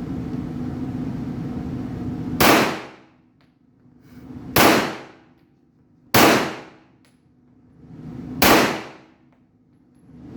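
Four gunshots at a shooting range, spaced about two seconds apart, each with a short ringing tail. A steady low rumble sits under the opening seconds until the first shot.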